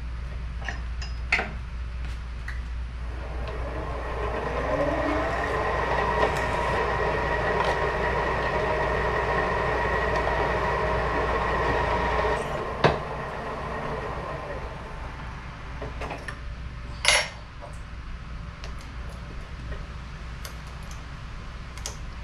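Drill press running, its bit cutting into an aluminium flange, a steady whine with cutting noise from about three seconds in that stops with a click about halfway through. A sharp metallic clank follows a few seconds later.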